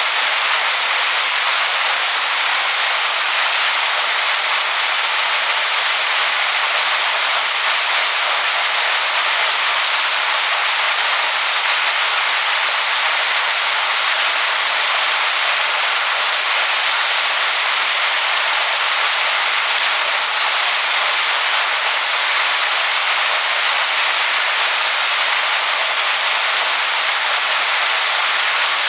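Waterfall rushing over rocks: a steady, loud hiss of falling water, mostly high in pitch with little low rumble.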